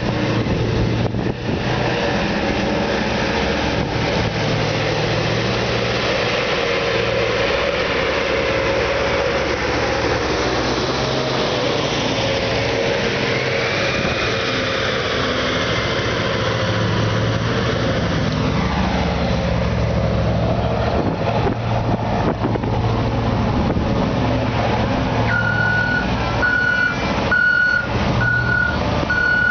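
Large mining haul truck's diesel engine running steadily as the loaded truck drives past. Near the end a reversing alarm starts beeping in a steady repeating pattern.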